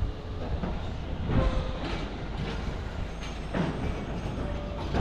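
Garbage truck running close by: a loud, steady heavy-engine rumble with a few brief louder clanking surges.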